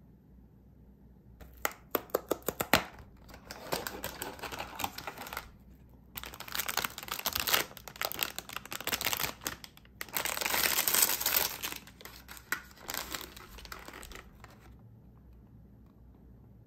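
A snack box being opened by hand: a quick run of sharp cardboard clicks as the box is torn open, then several long spells of crinkling and tearing as the inner wrapper is opened and peeled away, broken by short pauses and stopping shortly before the end.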